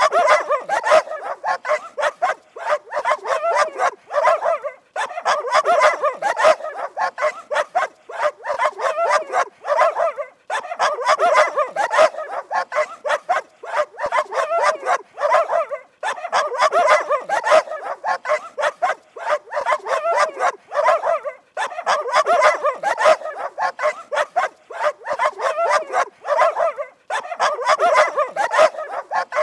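Dogs barking fast and without letup, in runs of about five seconds broken by short pauses.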